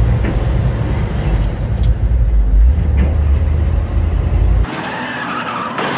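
1962 Mercury Comet's inline-six engine running as the car drives, a deep rumble. A little before the end the sound changes abruptly to a thinner hiss, with a sharp knock near the end.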